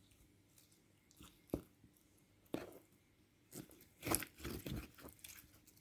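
Clear slime being squeezed and stretched by hand, making scattered sticky clicks and pops, a few at first and then a quick cluster over the last two seconds.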